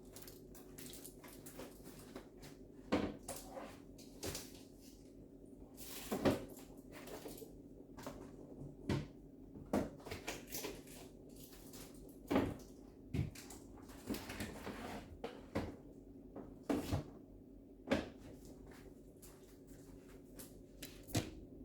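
Food containers and fridge shelves or drawers knocking and clattering as things are put back into a refrigerator, a dozen or so separate knocks spread out over a faint steady hum.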